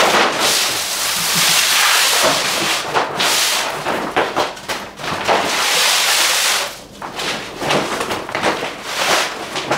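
Thin polyethylene sheeting crinkling and rustling as a roll of poly underlayment is unrolled and pulled flat across a concrete floor. The loud crackling rustle comes in long stretches and thins to scattered crackles near the end.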